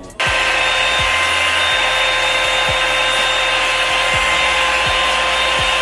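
Hair dryer running at one steady speed, a loud rush of air with a fixed whine, drying freshly washed hair extensions. It switches on sharply just after the start.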